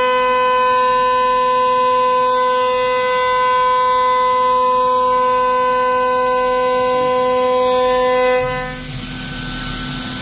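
CNC router spindle running at speed with a steady high-pitched whine that holds one pitch, then cuts off about eight and a half seconds in, leaving a lower machine hum.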